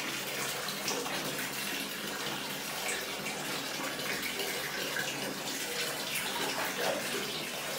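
Water running steadily from the bathtub tap into the tub.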